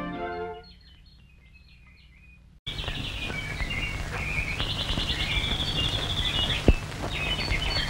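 Cartoon morning birdsong: high chirps and rapid trilling warbles, over the steady hiss of an old optical film soundtrack. The orchestral title music fades out in the first second.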